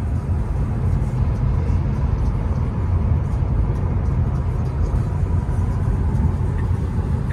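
Steady low rumble of tyre and road noise inside the cabin of a 2025 Tesla Model 3 electric car cruising at highway speed.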